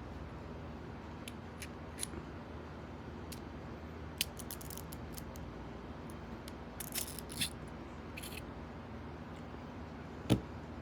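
Small metal tools and parts of a Mul-T-Lock Classic Pro euro cylinder being handled during disassembly: scattered light metallic clicks and short rattles, with one louder knock near the end.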